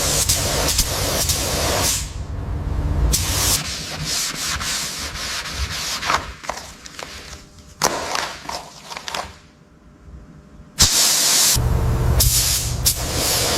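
Sanding: an abrasive scraped back and forth over a surface in several short edited stretches, with a quieter lull about two-thirds of the way through before loud sanding starts again abruptly.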